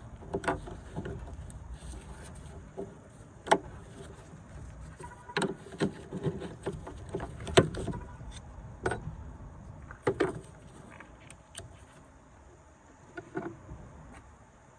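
Irregular metallic clinks and knocks from hand tools and car battery hardware being handled, over a low rumble. The sharpest knock comes about halfway through, and the sounds thin out near the end.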